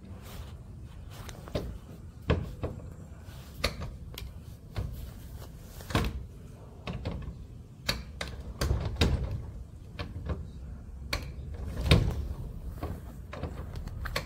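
Scattered knocks, clunks and rattles from workers taking apart an old garage door, about a dozen sharp strikes at uneven intervals, the loudest late on.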